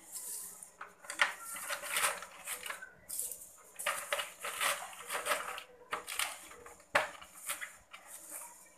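Lumps of charcoal filter media clinking, crunching and scraping in a plastic bucket filter as they are handled and packed in by hand, in irregular clatters with one sharp click about seven seconds in.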